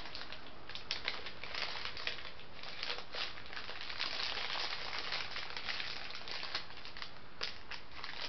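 Crinkling and rustling of MRE retort pouches being worked into a flameless ration heater sleeve beside the main, with many small crackles and one sharper click near the end.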